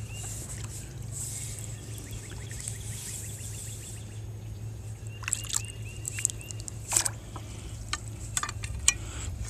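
Faint trickling and dripping water, with scattered small clicks and plinks that cluster a little past the middle. A low steady hum runs underneath.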